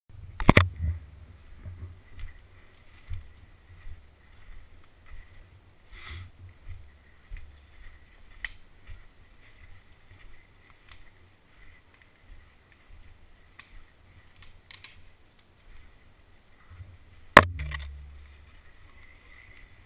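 Footsteps crunching through dry leaf litter and twigs in a steady walking rhythm, heard through a body-worn action camera. Two loud sharp knocks break in, one about half a second in and one near the end.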